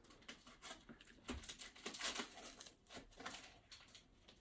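A crisp wafer being bitten and chewed: faint, irregular little crunches, thickest about one to three seconds in.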